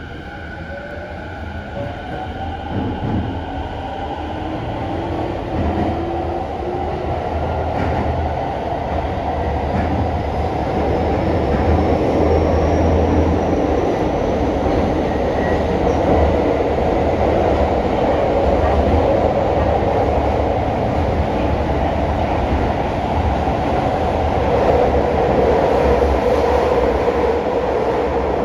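Toei 10-300 series subway train pulling away and accelerating: its Mitsubishi IGBT-VVVF inverter and three-phase induction motors whine in several rising pitches. Over the first dozen seconds this builds into the steady, loud rumble of wheels and track at running speed.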